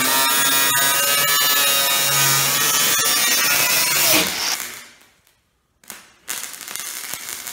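Angle grinder with a cut-off wheel cutting through a car's sheet-metal body panel, its whine wavering in pitch as the wheel bites, for about four seconds before it cuts off. A quieter hiss starts near the end.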